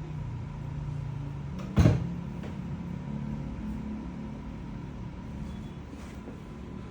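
A single loud thump about two seconds in, over a steady low hum.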